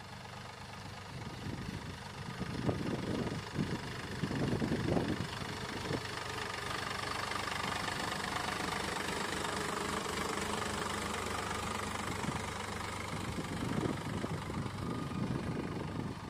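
Sonalika DI 740 tractor's diesel engine running steadily as the tractor drives through mud. It is louder and uneven for a few seconds, about two to five seconds in.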